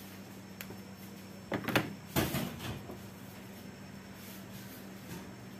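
Hand tools, pliers and a screwdriver, being set down on a wooden workbench: two short clattering knocks close together.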